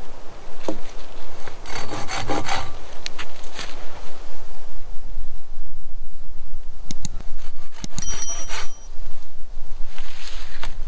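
Hand saw cutting through a thin wooden pole, the blade rasping back and forth in quick repeated strokes.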